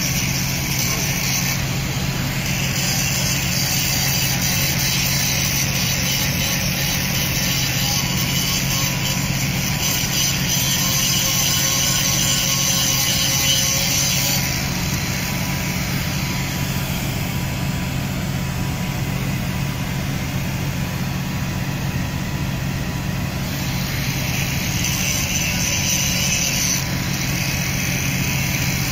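A ferry's diesel engines running in port, heard from the open deck as a steady low drone. A hiss sits above the drone, growing stronger a couple of seconds in and easing off about halfway through.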